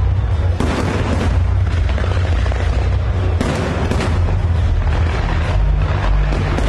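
Fireworks barrage: a dense, continuous run of booms and bangs from shells and comets launching and bursting, over a heavy low rumble, with sharper cracks a few times a second.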